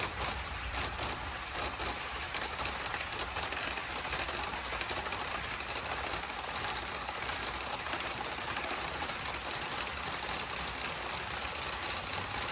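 Baltimore & Ohio (Chessie System) train running on jointed rail: the steady clatter of wheels passing over the rail joints, with the low rumble of the moving train.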